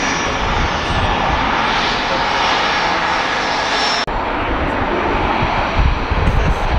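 Jet engines of departing airliners: first the steady roar and high whine of a twin-engine widebody climbing out, then, after an abrupt cut about four seconds in, a Southwest Boeing 737 MAX's CFM LEAP-1B engines at takeoff power during its takeoff roll, with a heavier, gusting low rumble.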